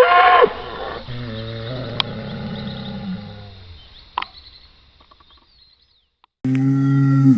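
Cattle mooing: a high-pitched bellow ends just after the start, a lower moo follows and fades over about two and a half seconds, and after a short pause a loud, deep moo begins near the end.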